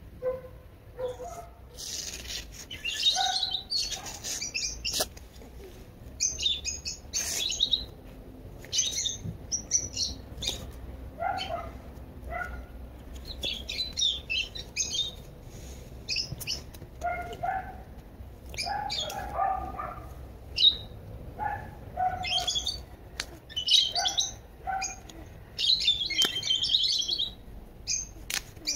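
Small birds chirping in repeated quick bursts, with a few short sharp taps in between.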